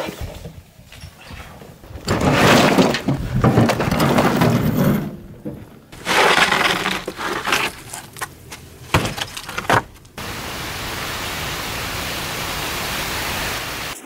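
Dry, curled rolls of tanning bark clattering and crackling as they are handled and stacked, in loud irregular bursts with a few sharp clicks. A steady hiss takes over for the last few seconds.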